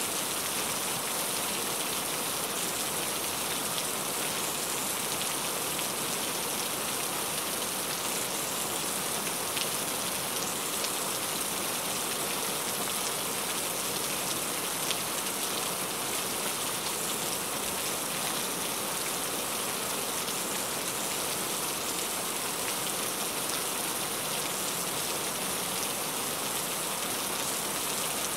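Heavy rain falling steadily: a dense, even hiss with a few separate drop hits standing out here and there.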